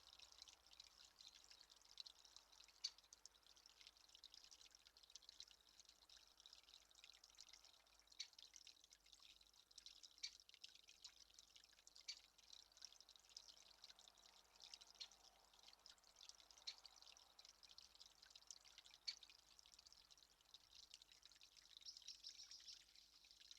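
Near silence: faint outdoor ambience with scattered soft ticks and crackles, irregular and unpaced.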